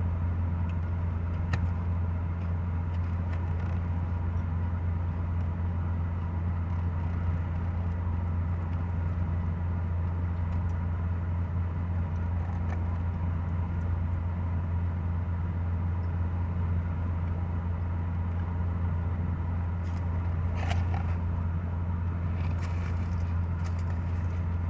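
Steady low hum of a parked car idling with its air conditioning running. A few faint clicks and a brief rustle near the end.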